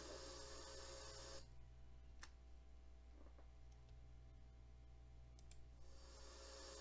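Near silence: a faint steady hum and hiss that drops away about a second and a half in and returns near the end, with a few faint clicks.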